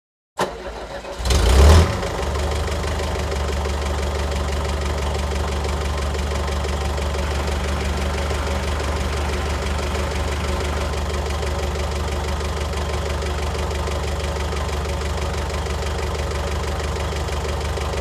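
Forklift engine starting, with a short loud burst about a second and a half in, then running at a steady idle.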